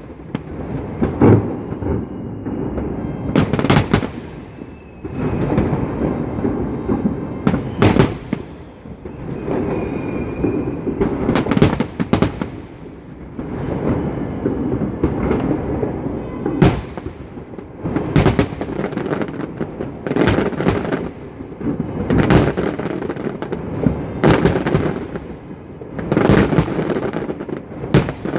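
Festive fireworks salute: loud bangs of bursting shells every second or two over a continuous noisy rumble. A short whistling tone comes about ten seconds in.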